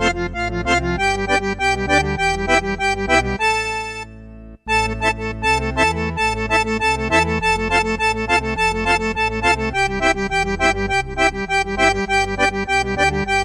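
Casio CTK-4200 arranger keyboard playing a melody over a rhythmic chord-and-bass accompaniment. The playing breaks off briefly about four seconds in, then starts again.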